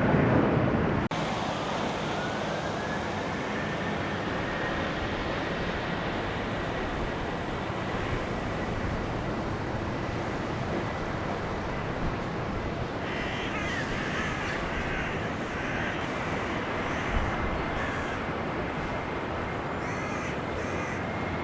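Steady rushing jet noise from an airliner, with a thin whine that rises and then holds level; the sound drops abruptly about a second in. A bird calls a few times around the middle and again near the end.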